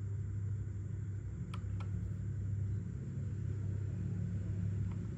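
Steady low background hum, with two faint clicks about one and a half and two seconds in.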